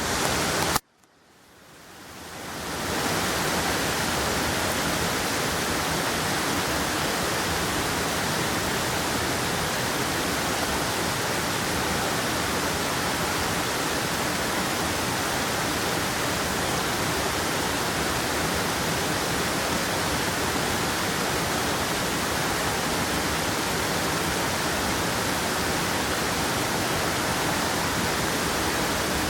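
Rain falling steadily, an even hiss with no breaks. About a second in the sound cuts out and fades back up over about two seconds.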